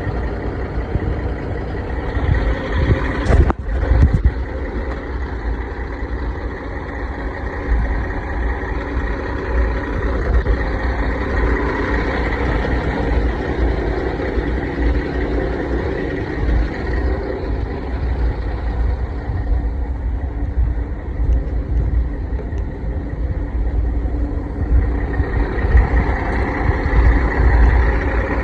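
Heavy diesel truck engine idling steadily, a low rumble with a faint steady whine over it, and a single knock about three and a half seconds in.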